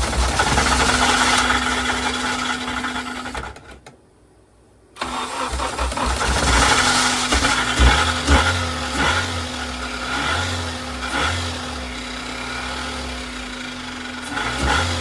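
7th-generation Honda Accord engine being cranked and run after sitting for months, revved hard on the throttle to keep it going. The sound drops out abruptly for about a second around four seconds in, then the engine is running again with uneven surges.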